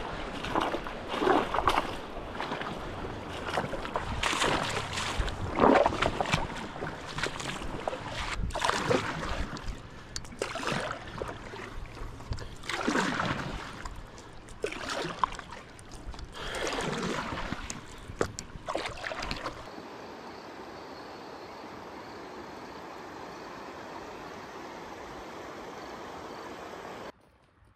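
Paddle strokes dipping and splashing in river water, an irregular swish every second or two. About two-thirds through, this cuts to a steady, even rush of flowing water, which drops away just before the end.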